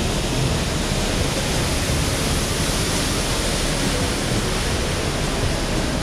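Waterfall, a steady, even rush of falling water.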